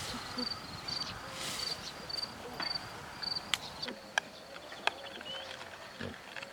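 A cricket chirping in short, high, regular chirps, a little under two a second, stopping about halfway through. A few sharp clicks follow.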